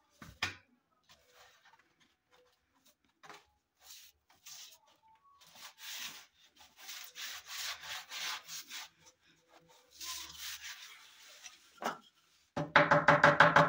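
Hands rubbing and sliding a laminated plywood board against a cabinet panel: a run of quick dry scraping strokes, then a longer scrape about ten seconds in, with a sharp knock near the start and another near the end. Loud music with a steady beat comes in near the end.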